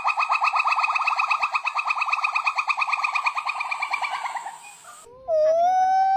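Monkey calls: a fast trill of about ten pitched notes a second, fading away at about four and a half seconds. After a short gap a different, long steady wail begins, rising slightly in pitch.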